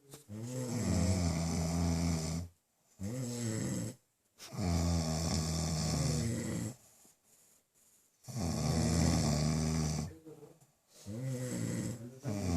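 A man snoring in his sleep: about five long, low-pitched snores, each a second or two long, with short silent pauses between breaths.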